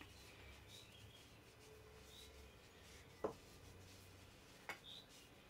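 Near silence with a few faint, short bird chirps and two brief clicks, the first about three seconds in and the loudest.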